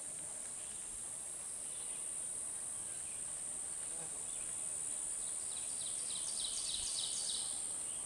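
Steady high-pitched drone of field insects, with a short run of rapid higher chirps about three-quarters of the way through.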